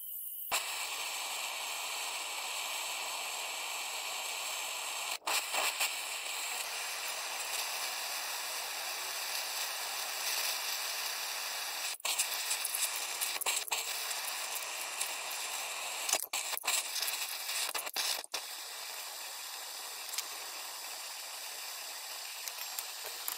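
Two handheld gas torches hissing steadily, starting about half a second in, as they heat a rust-seized rear hub to free the axle.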